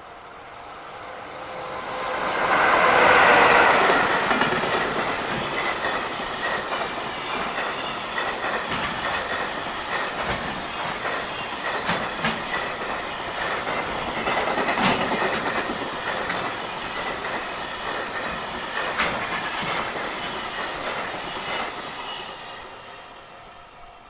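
JR Freight container train passing over a level crossing: the locomotive goes by loudest about three seconds in, then a long string of container wagons runs past with clickety-clack from the wheels over the rail joints, fading away near the end. The crossing's warning bell rings steadily underneath.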